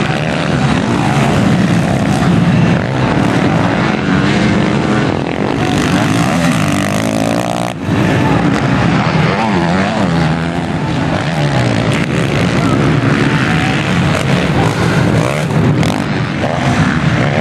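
Motocross bike engines revving on the track, pitch rising and falling as riders open and close the throttle through jumps and turns, with a brief break about eight seconds in.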